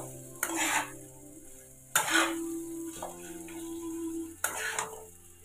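A spatula scraping and stirring a chicken mince and potato samosa filling in a wok, in three strokes about two seconds apart, with the filling sizzling.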